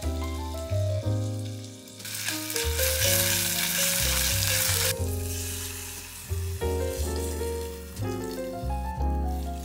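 Meat sizzling as it fries in a clay pot, loudest for about three seconds starting two seconds in, under background music.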